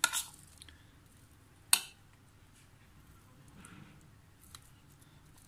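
A spoon scooping moist spice filling off a plate and packing it into a slit tinda: quiet scraping and squishing, with a sharp click of the spoon against the plate near the start and a louder one under two seconds in.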